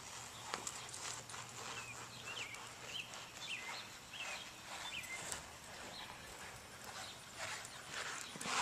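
Hoofbeats of a ridden horse going round a sand pen, fainter in the middle and louder again near the end as it comes back close.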